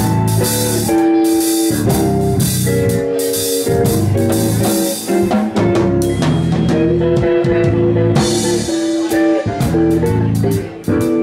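Live jazz trio playing: drum kit struck with sticks on cymbals and drums, with electric guitar and bass holding pitched notes. The music dips briefly near the end.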